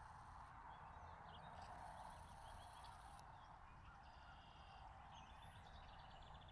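Near silence: faint outdoor ambience with a steady low hiss and a few faint bird chirps.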